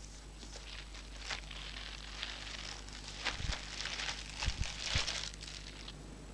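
Clear plastic bag crinkling and rustling as hands handle it, with a few soft knocks in the second half.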